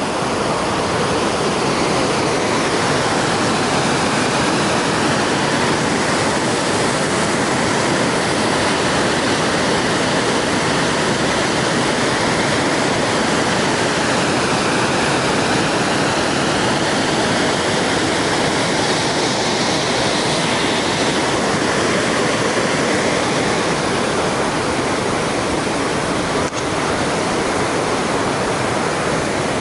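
Water pouring over a weir and churning in the pool below: a loud, steady rush.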